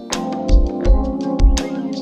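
Background music with a steady drum beat, a low kick about twice a second under held chords.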